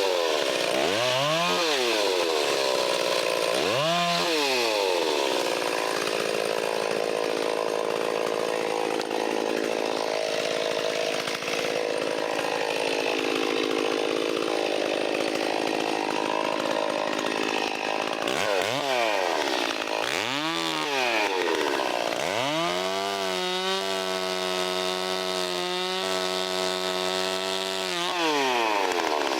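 Stihl 034 two-stroke chainsaw blipped up twice, then held under load in a long cut through wood. After that it revs a few more times and runs steadily at high speed before dropping back to idle near the end.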